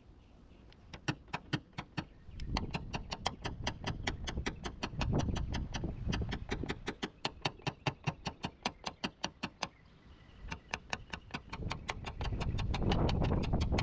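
Rapid, even tapping: sharp light taps at about four or five a second, pausing briefly about ten seconds in, then starting again.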